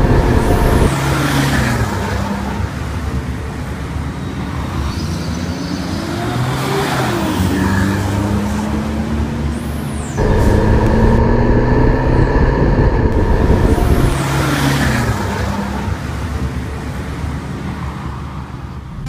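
Mitsubishi Pajero fitted with an aftermarket exhaust, heard close at the tailpipe and then driving past. The exhaust note rises in pitch as the SUV approaches and falls as it pulls away. The sequence repeats about halfway through.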